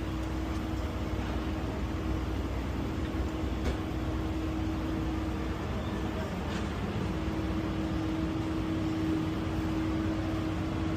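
Steady city background noise with a constant low hum running under it, and a couple of faint light clicks.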